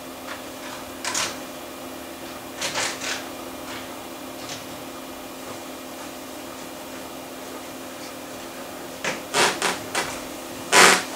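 Macintosh Plus internal SCSI hard drive seeking during a drive test: irregular clicks and short rattles over a steady hum, with a quick cluster of them near the end, the last the loudest.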